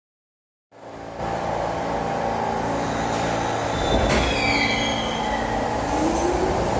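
After a brief dead silence, the steady rumble of a New York City subway train in the station fades in and holds. About two-thirds in come a click and short, falling squeals, and near the end a short rising whine.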